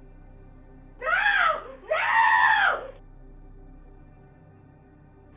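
A woman screaming in desperation, twice, each scream about a second long and rising then falling in pitch, picked up by a doorbell camera's microphone.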